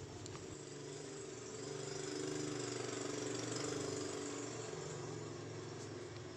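An engine running steadily at low revs, growing louder for a couple of seconds mid-way and then easing off.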